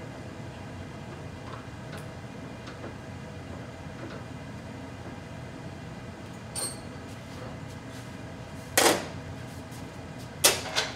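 Steady background hum, then a sharp clank about nine seconds in and two more in quick succession near the end: metal tooling being handled and set down at a Bridgeport milling machine.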